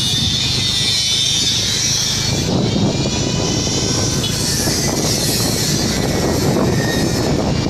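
A vehicle's engine running steadily, heard from on board while moving, with wind rushing over the microphone.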